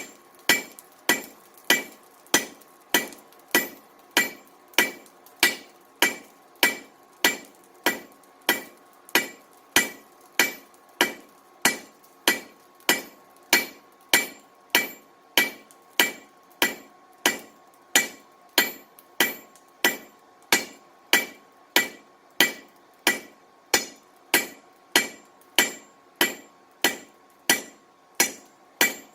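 Blacksmith's hand hammer striking a hot steel bar on an anvil in a steady rhythm, about three blows every two seconds, tapering out the end of a forged curtain rod. Each blow gives a short metallic ring.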